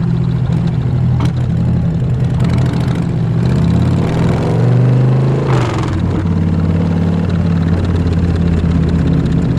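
Harley-Davidson Fat Bob 114's Milwaukee-Eight V-twin, breathing through a Vance & Hines full exhaust, running under way at a steady note. About four seconds in it revs up, rising in pitch, then drops back a moment later.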